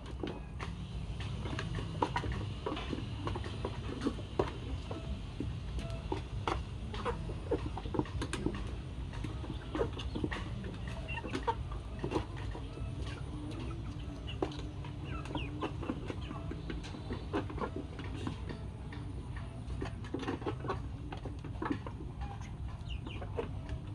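Chickens clucking in many short calls throughout, over a steady low rumble.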